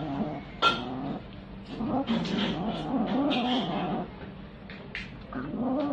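Kitten growling while it eats, in long, low, wavering stretches with short gaps. There is a sharp click just under a second in.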